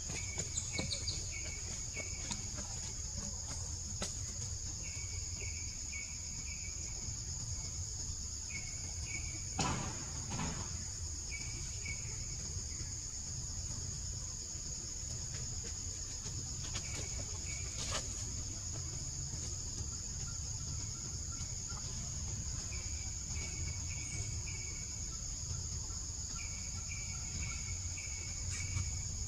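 Forest ambience: a steady high-pitched insect drone, with short runs of quick repeated chirps coming back every few seconds. A few brief knocks or rustles come about ten seconds in and again near eighteen seconds.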